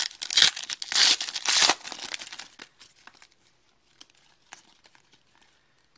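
A 2010-11 Panini Pinnacle hockey card pack wrapper being torn open and crinkled, loud for the first two seconds or so. After that only faint clicks of the cards being handled.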